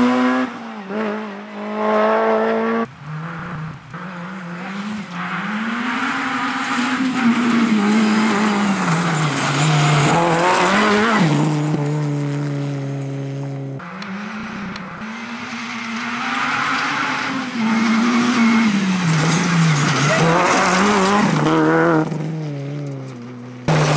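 Honda Civic Type R rally car driven hard: the engine's revs climb and drop over and over through gear changes and lifts as it passes, in several short clips joined with abrupt cuts, over a hiss of tyres on gravel.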